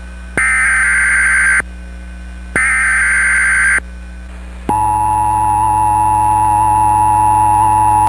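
NOAA Weather Radio Emergency Alert System SAME header: two raspy bursts of data tones, each about a second long with about a second between them. About four and a half seconds in, the long, steady single-tone warning alarm starts. Together they announce a severe thunderstorm watch, and a low hum runs underneath.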